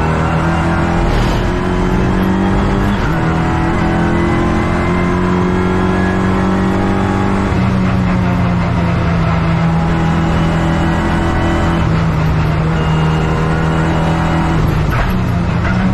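Renault Clio Cup race car engine running hard and steady at high revs. Its note steps down in pitch about three seconds in, again about halfway through, and once more near the end.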